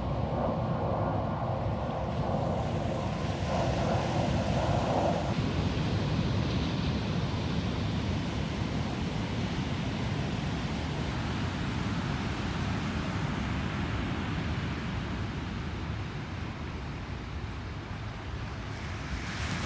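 Ocean surf washing on the shore, with wind on the microphone. A steady mechanical hum runs under it for the first five seconds or so, then stops.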